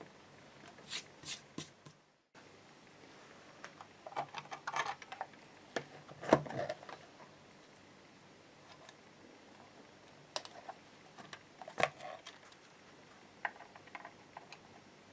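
Scattered small clicks, taps and knocks of a Stratocaster being taken apart by hand, as its hardware and parts are handled and set down, with two sharper knocks, one midway and one later.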